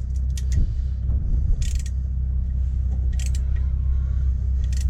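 Socket ratchet being worked in short strokes, about every one and a half seconds, doing up a 12 mm bolt on the engine, over a steady low hum.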